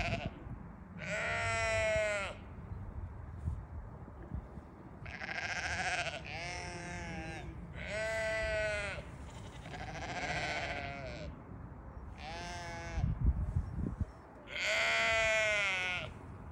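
Dorper sheep bleating repeatedly: about seven long, wavering bleats, each roughly a second long and spaced a second or two apart. A brief low thudding comes just before the last bleat.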